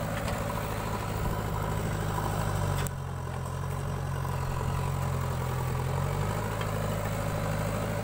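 Diesel engines of a JCB 3DX backhoe loader at work and a Swaraj tractor standing by, running steadily. The engine sound changes abruptly about three seconds in.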